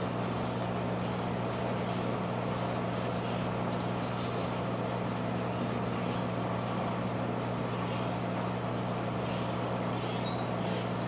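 Steady low electric hum of running aquarium equipment, with faint scattered high ticks from bubbling water in the tank.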